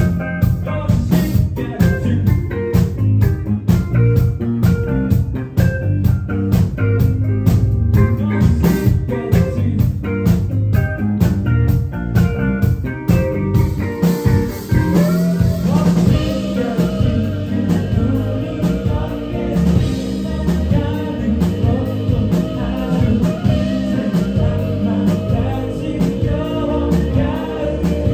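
Live band music with a steady drum beat, bass and electric guitar. About halfway through the drums drop out and held, sustained chords carry on.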